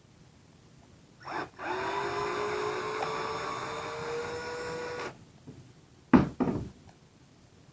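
A small handheld power tool's motor runs for about three and a half seconds, its whine slowly rising in pitch, used to get the broken top piece out of an RC shock. Two sharp knocks follow near the end.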